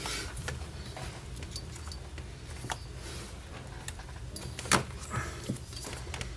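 Scattered small clicks and knocks of hands working with plastic parts and wiring, with one sharper click a bit under five seconds in, over a low steady hum.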